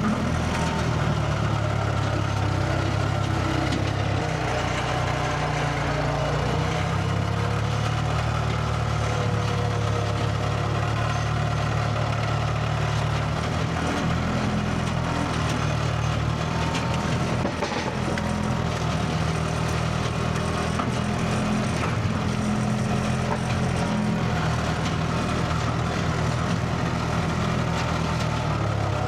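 Skid steer engine running steadily at a constant speed, with slight shifts in pitch.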